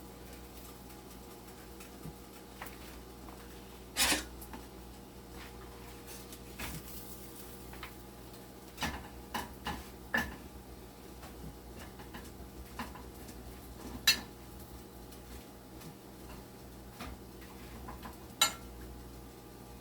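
A cooking utensil clinking and knocking against a frying pan now and then: a handful of separate sharp knocks, the loudest about four, fourteen and eighteen seconds in, over a steady low hum.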